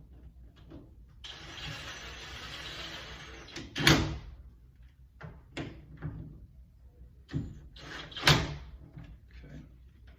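A front door and its newly fitted deadbolt being tried out. A scraping rush lasts about two seconds, then comes a loud clunk, a few lighter clicks, and a second loud clunk about four seconds later.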